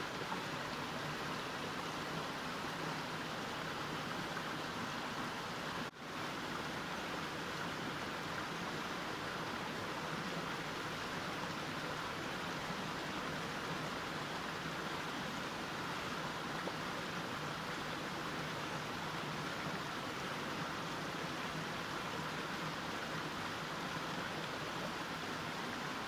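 Mountain stream flowing in a steady, even rush of water, with a momentary dropout about six seconds in.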